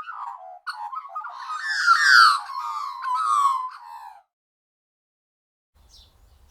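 Bird calls: a run of warbling, gliding calls that stop abruptly about four seconds in.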